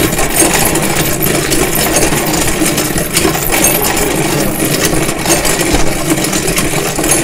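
Winch running steadily with a rattling hum as it hauls up the heavy insulated lid of a 300-litre electric kiln.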